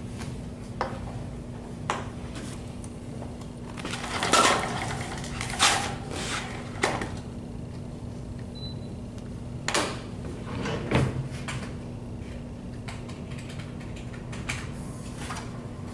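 Scattered knocks, clicks and rustling of things being handled, over a steady low hum. The loudest rustling comes about four to six seconds in and again around ten to eleven seconds.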